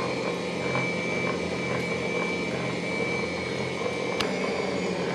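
Electric stand mixer running, beating quark cheesecake filling in its glass bowl: a steady motor whine with a soft rhythmic pulse about twice a second. About four seconds in there is a sharp click and the high whine cuts out.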